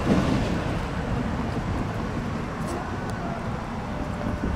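Steady low outdoor rumble of wind on the microphone and road traffic.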